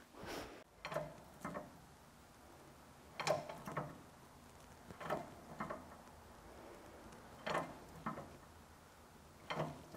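Quiet mechanical clicks and knocks from a hydraulic shop press being worked, mostly in pairs about half a second apart every couple of seconds, as the press loads a makeshift fixture to push a pressed-in sleeve out of a 10-bolt rear differential carrier.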